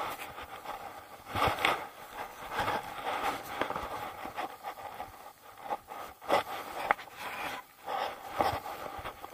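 Irregular rustling and scraping of clothing and gear rubbing close to the camera, in uneven short bursts.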